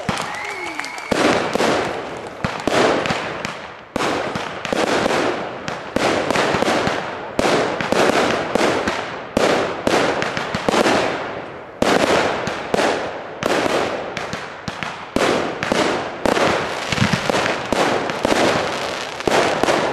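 Aerial fireworks going off in a rapid barrage: sharp bangs about one to two a second, with crackling between them.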